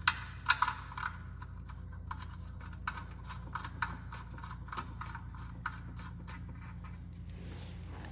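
Hand tools and parts being handled during snowmobile work: irregular light clicks and scrapes, a few sharper ones near the start, over a steady low hum.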